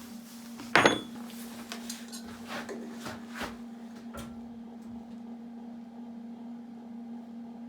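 A sharp metallic clank with a short ring about a second in, then several lighter knocks as metal parts are handled, over a steady low hum.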